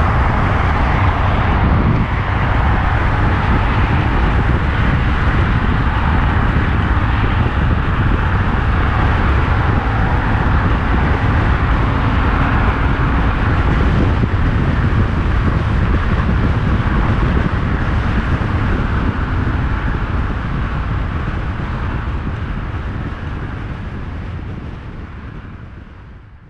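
BMW motorcycle riding at freeway speed: a steady rush of wind and road noise with the engine underneath. It fades out over the last few seconds.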